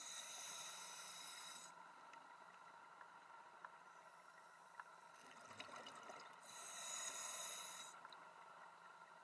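Scuba diver's regulator heard underwater: two bursts of exhaled bubbles, one at the start and another about six seconds later, over a steady faint hum.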